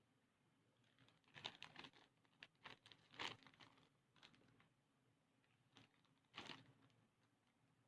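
Faint crinkling and rustling, as if something is being handled, in short clusters: a run of them between about one and a half and three seconds in, and another near six and a half seconds.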